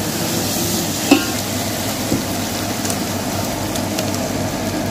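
Oil with garlic and ginger-garlic paste sizzling steadily in a large aluminium cooking pot. A single sharp clink sounds about a second in.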